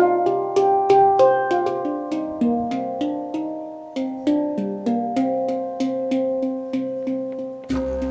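A quick melody of sharply struck, ringing pitched notes, each fading away, from a pitched percussion instrument. Near the end a steady low didgeridoo drone comes in.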